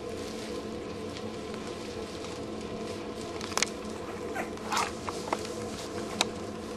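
Two-week-old English bulldog puppies giving a few brief squeaks from about halfway through, mixed with several short sharp clicks, over a steady low hum.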